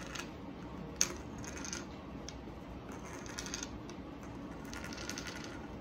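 Small glasses and a plastic cola bottle handled on a table: light clicks and rattles in short bursts, with one sharper tap about a second in.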